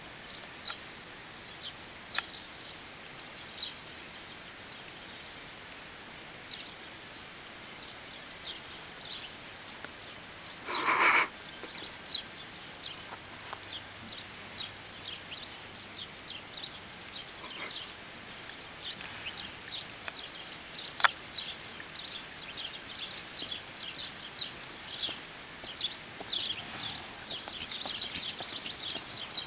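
Small birds chirping on and off in short high notes, more densely near the end. About eleven seconds in there is one loud, breathy blast about a second long: a horse blowing out through its nose.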